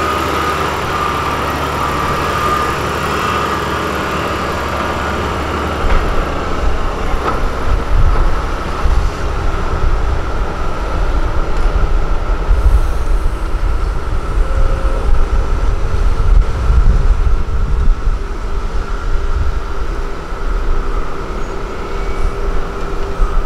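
Loaded diesel dump trucks driving on a dirt haul road, the engine running steadily. About six seconds in, a heavier, uneven low rumble comes in and grows louder.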